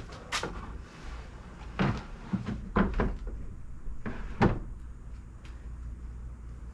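A wooden platform panel being manoeuvred into a vehicle's cargo area for a test fit, knocking and bumping against the floor and trim about half a dozen times, with the loudest knocks near two, three and four and a half seconds in.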